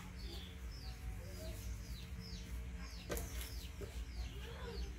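A string of short, high chirping calls, each falling in pitch, about two a second, over a low steady hum, with a single sharp knock about three seconds in.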